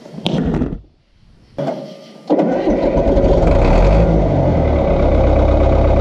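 Caterpillar D4C bulldozer's diesel engine cutting in about two seconds in and running steadily and loudly, with a deep low rumble. A short clatter of the steel cable slings being handled comes just before it.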